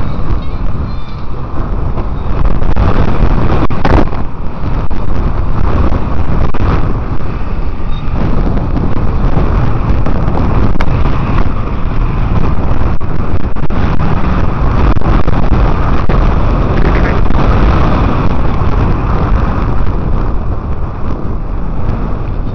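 Heavy wind buffeting the microphone on a moving bicycle, over a steady low rumble of the ride, with a sharp click about four seconds in.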